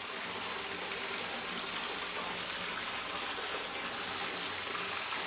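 Steady running and trickling of liquid, typical of whey draining from goat-milk curd through a perforated stainless steel tray in a cheese vat.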